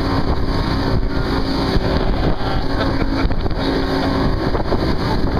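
Offshore fishing boat's engine running steadily while the boat is underway, under a loud, even rushing noise.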